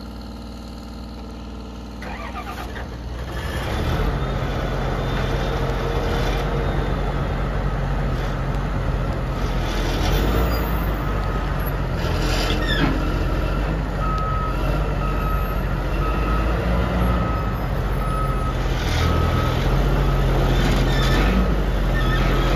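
The 240 hp Cummins diesel engine of a 2006 JCB 722 articulated dump truck idles, then comes up in revs about three seconds in and keeps running steadily under load. In the second half a backup alarm beeps evenly, just over once a second.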